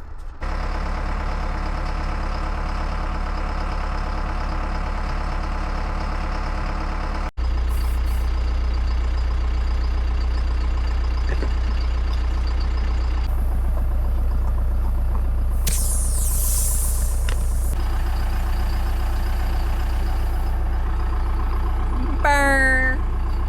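John Deere backhoe's engine idling steadily. About two seconds of air hissing comes midway, while the backhoe tire is being filled. A brief sliding-pitch sound comes near the end.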